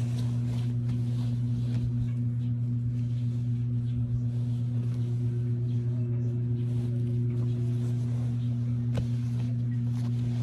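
A steady low hum, unchanging throughout, with faint rustling and soft ticks of cloth garments being handled and unfolded.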